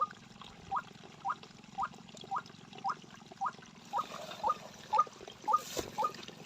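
White-breasted waterhen calling: a steady run of short, sharply rising calls, about two a second.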